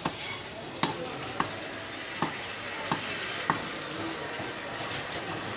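Butcher's cleaver chopping beef leg on a wooden log chopping block: six sharp knocks, about one every two-thirds of a second, stopping a little past halfway, over a steady background hiss.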